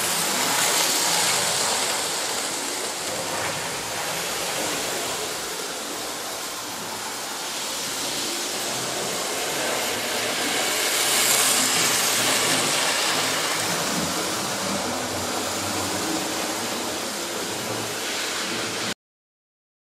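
Model railway trains running on the layout: a steady rushing and rattling of wheels on track and small electric motors. It swells about a second in and again about eleven seconds in, then cuts off suddenly near the end.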